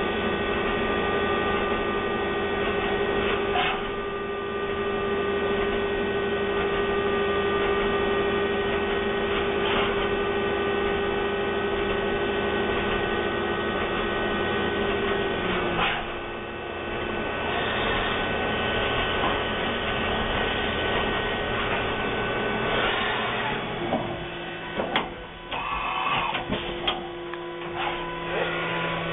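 2012 Haas VF-1 CNC vertical mill running under power: a steady electric whine made of several tones. The tones shift about halfway through, and a few clicks and knocks come near the end.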